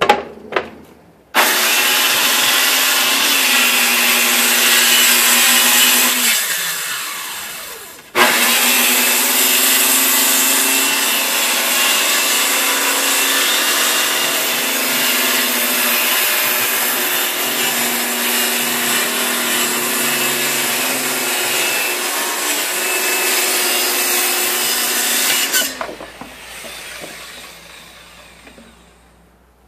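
Circular saw cutting a sheet of plywood. It starts about a second in, cuts for about five seconds, then slows and spins down. It starts again about eight seconds in and cuts steadily for some seventeen seconds before winding down near the end.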